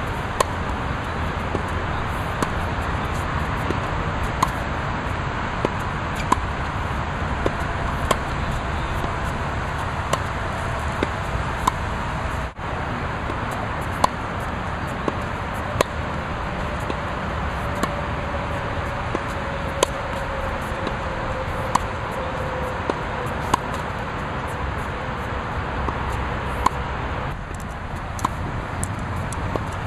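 Tennis ball being hit with a racket and bouncing during a groundstroke rally: sharp pops about once a second over a steady background noise.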